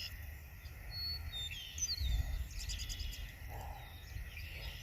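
Wild birds chirping: a few short whistles sliding down in pitch, then a quick run of chirps. A low rumble of wind on the microphone lies underneath and swells about two seconds in.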